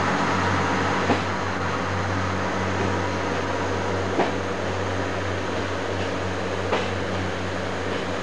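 Class 142 Pacer diesel multiple unit pulling away, a steady diesel drone that eases slightly as it goes. Three sharp clicks come at shortening intervals.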